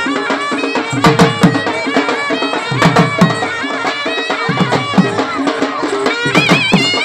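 Traditional procession music: drums beaten with sticks under a shrill reed-pipe melody of held, stepping notes, which breaks into a fast wavering trill near the end.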